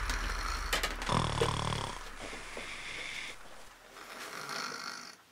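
A man snoring in his sleep: a low rattling snore about a second in, followed by softer breathy breaths that fade out.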